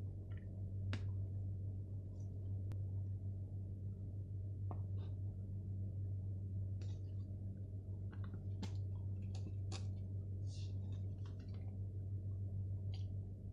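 A steady low hum with scattered small clicks and ticks, more frequent in the second half.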